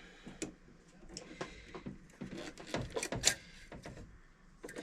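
Scattered clicks and light knocks of hands working the MIG welder's wire feed while threading the welding wire, with a couple of louder knocks about three seconds in.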